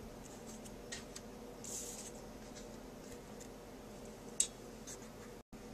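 Faint rustles and light taps of paper cardstock and punched paper circles being handled on a tabletop, with one sharper click about four seconds in.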